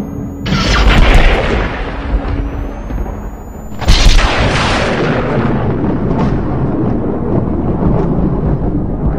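Trailer-style sound-design hits in an edited soundtrack: a thin rising sweep builds into a deep boom about half a second in, then a second sweep builds into a louder boom about four seconds in. Each boom trails off into a long low rumble.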